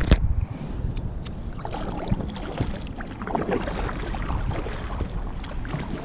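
Kayak paddle strokes through calm water, with irregular splashing and dripping from the blade. A short low thump comes right at the start.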